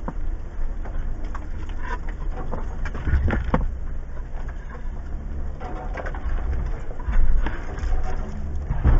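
Low, steady drone of a Jeep Wrangler Rubicon's V6 engine at a slow crawl, heard from inside the cab, with knocks and clunks from the tyres and suspension working over rock. A cluster of knocks comes about three seconds in, and the loudest clunks come about seven and nine seconds in.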